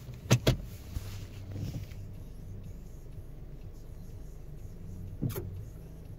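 Steady low hum of a Lexus UX standing still in Drive, heard from inside the cabin, with two sharp knocks in quick succession about half a second in and another just past five seconds. The owner says something rattles faintly behind the instrument panel at this standstill.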